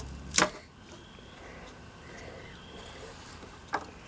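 Two sharp snaps of rotten wooden handle scale being broken off an old machete's tang, the first about half a second in and the second near the end.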